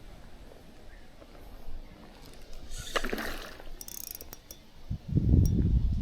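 Wind buffeting the microphone in a low rumble that comes up strongly about five seconds in, after a short rustle and a few sharp clicks of handling noise.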